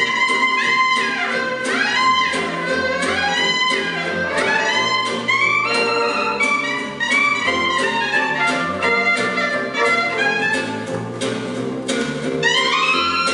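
Gypsy-jazz quartet playing live. A clarinet solo with scooped, sliding notes rides over acoustic rhythm guitar strummed on every beat and a plucked double bass.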